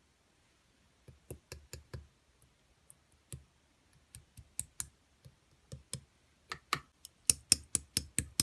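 Slime being pressed and poked by hand, making irregular sticky clicks and pops. They come louder and quicker, about four a second, in the last second or so.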